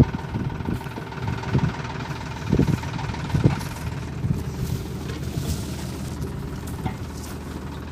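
Tractor engine running steadily, with a few short louder surges.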